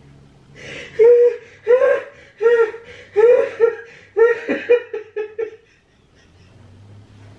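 A person laughing out loud in a run of quick, high-pitched 'ha' bursts that start about a second in, come faster and fainter, and die away after about four seconds.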